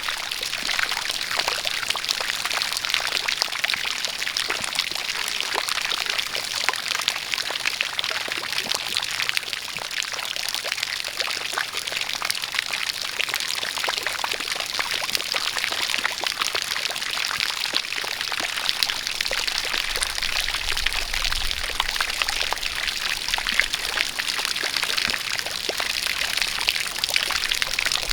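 A steady stream of water pouring and splashing, with a dense patter of falling drops.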